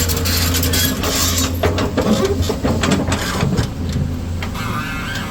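Sany SY215C-9 excavator's diesel engine running steadily under load, with a run of knocks and clatter from about a second and a half in until nearly four seconds in as the machine works soil.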